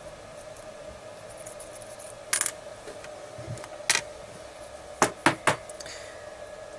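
A few sharp clicks and taps of small hard pieces on a workbench top: wood core and debris being cleared from a miniature tube drill. There is one about two seconds in, one near four seconds, and a quick run of three around five seconds, over a faint steady hum.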